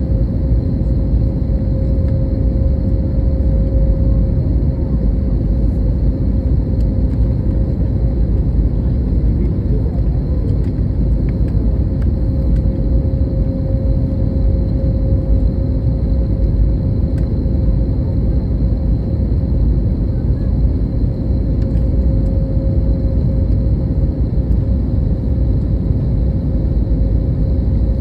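Steady low rumble of a jet airliner with a constant engine hum, holding level without rising or fading.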